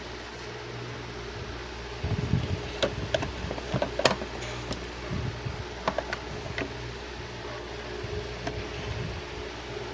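Steady low mechanical hum, like a fan, with scattered light clicks and a few soft knocks.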